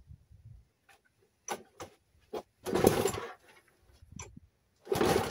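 Knocks and clicks from handling a ride-on lawnmower's red plastic body shell, with two longer, louder clatters about three and five seconds in.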